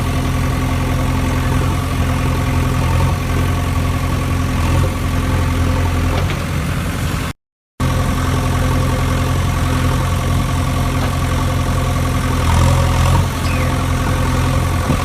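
Engine idling steadily with a low, even hum; the sound cuts out completely for about half a second midway, then resumes unchanged.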